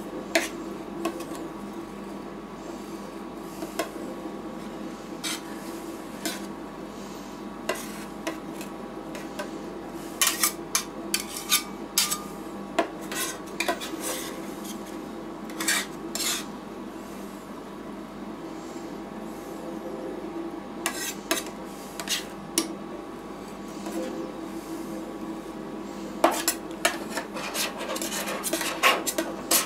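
Metal spatulas scraping, tapping and clinking on the stainless-steel freezing plate of a rolled-ice-cream machine as the frozen mixture is spread and smoothed, in irregular flurries that are busiest in the middle and near the end. A steady hum from the machine runs underneath.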